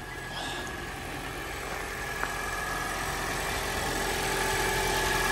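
2017 Prius Prime's 1.8-litre four-cylinder petrol engine idling steadily, just started and running strong, growing gradually louder. A faint click about two seconds in.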